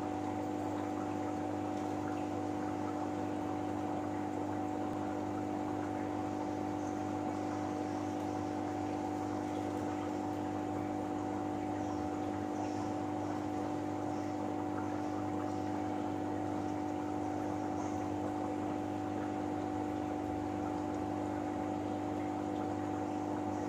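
Aquarium pumps running in a fish room: a steady hum with a few fixed pitches, under a soft hiss of moving water.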